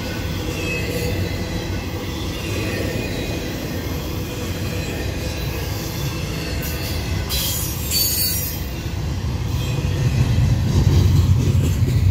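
Double-stack intermodal freight train's loaded container well cars rolling past on the rails: a steady low rumble with thin, high wheel squeals. The rumble grows louder in the last couple of seconds.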